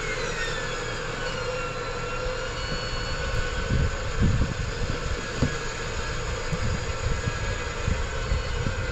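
Vehicle engine running under load during a winch recovery, with a steady drone and a whine that falls in pitch over the first few seconds. Low thumps come about four to five seconds in.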